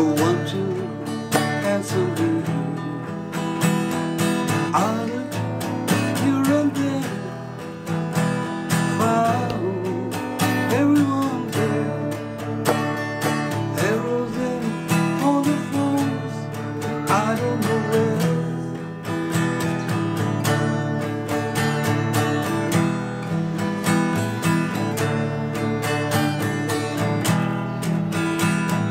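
Cutaway acoustic guitar strummed and picked in a steady rhythm, playing a song.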